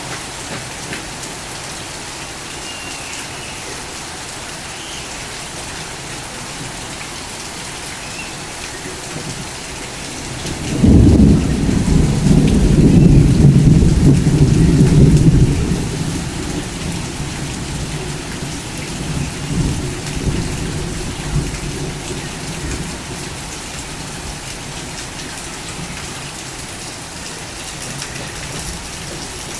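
Heavy rain falling steadily. About eleven seconds in, thunder breaks suddenly into a loud low rumble that lasts several seconds and then dies away slowly.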